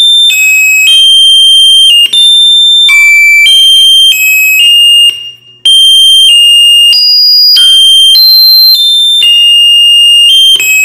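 Homemade NE555 timer push-button piano circuit sounding through a loudspeaker: a string of shrill, high-pitched electronic tones, each held steady and jumping to a new pitch as a different key button is pressed, roughly one note every half second to a second, with a short break about five seconds in.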